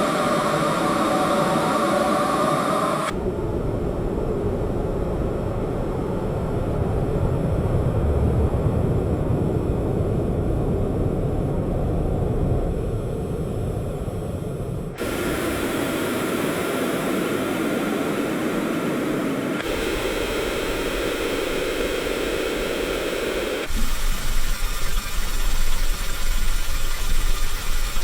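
Passport control booth ambience: a steady hum and hiss with no voices, switching abruptly to a differently pitched hum four times. In the last few seconds it turns uneven, with a deep rumble.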